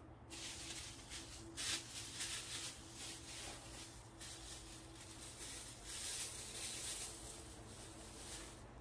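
Irregular rustling and crinkling of handled wrappings while a dog's wet paws are seen to, over a faint steady hum.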